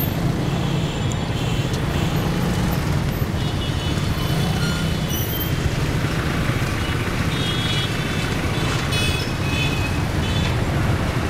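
Small motorbike running steadily under its riders through dense city traffic, the hum of its engine mixed with the noise of cars and other motorbikes around it. A few short high horn toots sound about a third of the way in and again later.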